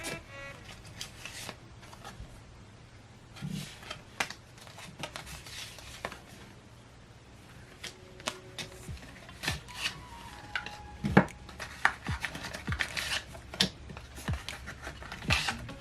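Hands handling packaging and cards: scattered crinkles, rustles and sharp clicks, busier in the second half, under faint background music.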